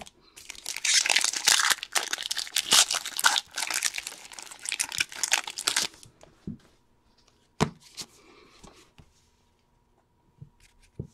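A baseball card pack's wrapper being torn open and crinkled for about five seconds, followed by a single sharp tap and faint rustling of cards.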